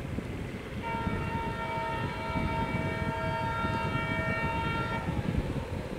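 Diesel locomotive's multi-note air horn sounding one long chord for about four seconds, starting about a second in, over the low rumble of the train running on the track.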